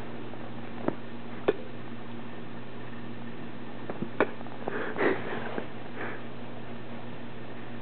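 Corgi puppy's claws clicking and scuffling on a hardwood floor: a few sharp clicks, then a short flurry of scuffles about five seconds in, over a steady low hum.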